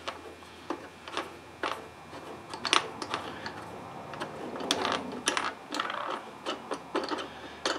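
Light, irregular clicks and ticks of a mower engine's air cleaner cover screws being turned loose by hand.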